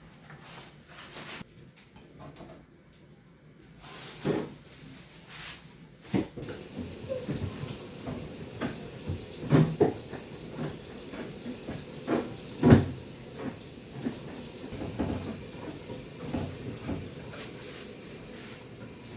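Knocks and clatter of fridge shelves, drawers and containers being handled while the fridge is cleaned. A steady hiss, like running water, sets in about six seconds in.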